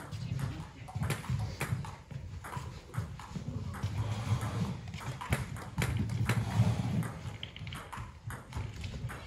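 Table tennis rally: a celluloid-type ball ticking sharply off bats and the tabletop at an irregular pace, over a low background rumble.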